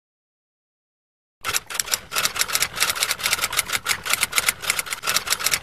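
Silence, then from about a second and a half in a fast, uneven run of sharp key clicks like typing, several clicks a second.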